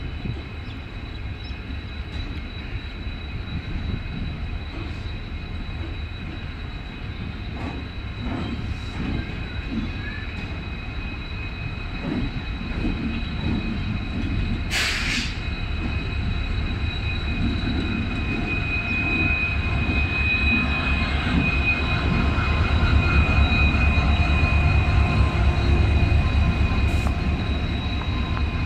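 Passenger train rolling slowly past, with wheel rumble and occasional knocks at rail joints under a steady high whine. Partway through, a brief hiss of air. In the second half the low rumble of a WDP-4D diesel locomotive's engine grows steadily louder as it draws near.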